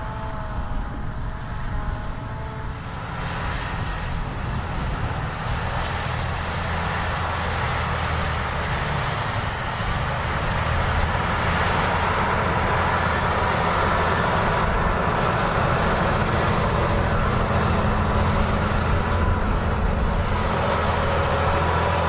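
Fendt tractor's diesel engine running steadily under load, pulling a BOS Combo-Dozer leveling scraper through loose ploughed soil. A wavering whine sits over the engine in the first couple of seconds, and the sound grows louder from about ten seconds in.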